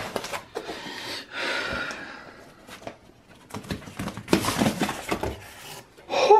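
Corrugated cardboard rustling and scraping, with a few light knocks, as packing cardboard is lifted and slid out of a large shipping box. A short vocal gasp comes near the end.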